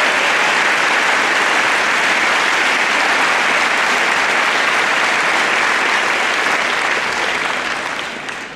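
A large crowd applauding steadily, dying away near the end.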